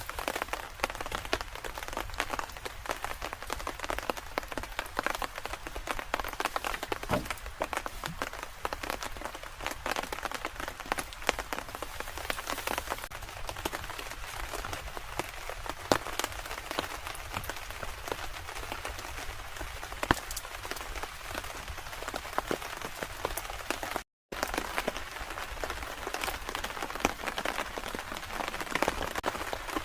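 Steady rain falling, with many sharp individual drop hits on a near surface. The sound cuts out completely for a moment about three-quarters of the way through.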